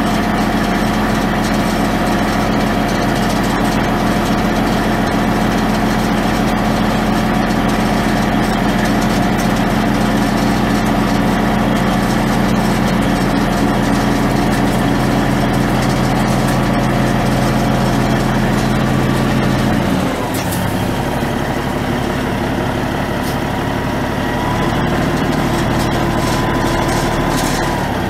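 Caterpillar 3406 14.6-litre inline-six turbo diesel in a 1991 Peterbilt 379 dump truck, idling steadily. Nearly two-thirds of the way through, the sound shifts lower and a little quieter.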